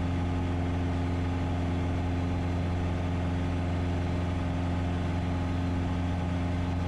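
Piper PA-28's piston engine and propeller droning steadily at climb power just after takeoff, heard inside the cabin: an even, unchanging hum with no change in pitch.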